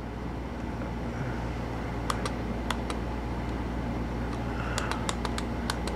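Small plastic button clicks from a handheld ESC program box as its keys are pressed, scattered single presses and quick pairs in the second half, over a steady low hum.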